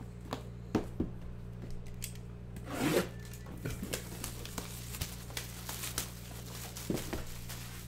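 Plastic shrink wrap and a cardboard trading-card box being handled and unwrapped: crinkling and rustling with short clicks and taps, and a louder rustle about three seconds in. A steady low electrical hum runs underneath.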